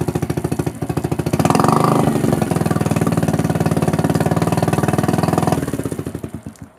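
Yamaha 4 hp four-stroke single-cylinder outboard motor running with its leg in a tub of water, picking up revs about a second and a half in and then holding steady. Near the end it is stopped with its stop button and runs down to a halt.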